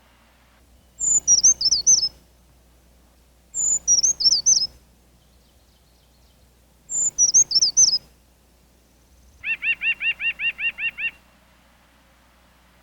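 Songbird singing the same short phrase three times, each a high opening note followed by a few quick down-slurred notes. Near the end comes a rapid run of about ten lower, evenly repeated notes.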